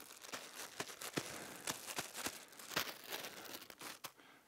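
A balloon crinkling and crackling as it is shaken over a horse's head to make noise, in quick irregular crackles that stop about four seconds in.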